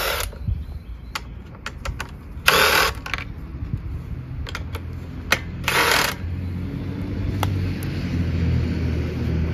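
Three short bursts of a power tool, about three seconds apart, running out the 10 mm bolts that hold the Honda engine's top shroud, with small metal clicks and knocks between them. A low hum builds in the second half.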